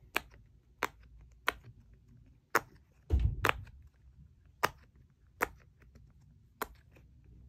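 Silicone push-pop fidget toy shaped like a game controller being popped bubble by bubble on its loud side: sharp single pops about once a second, eight or nine in all, with a low thump about three seconds in.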